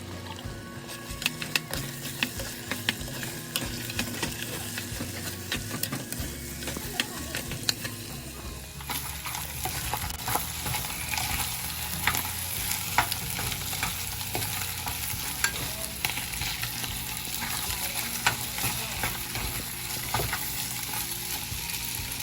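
Food sizzling as it fries in a pan while a utensil stirs it, with frequent clicks and scrapes against the pan. The sizzle grows louder and hissier about nine seconds in.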